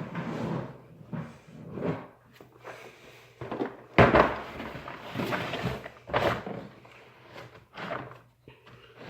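Tools and cases being handled on a workbench: a string of scrapes and bumps, with a sharp knock about four seconds in.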